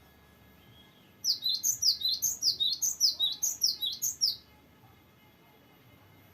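Cinereous tit (gelatik batu) singing one fast rolling phrase of sharp, descending whistled notes, about four or five a second for some three seconds.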